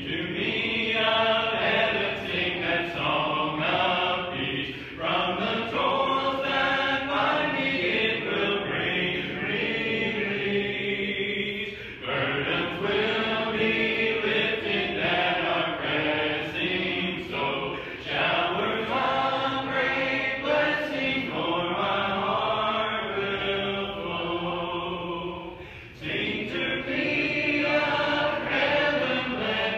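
A church congregation singing a hymn together, many voices in long phrases with short breaks between them.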